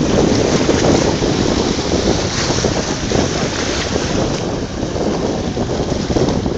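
Wind buffeting the microphone in a loud, steady rush, over the noise of the sea.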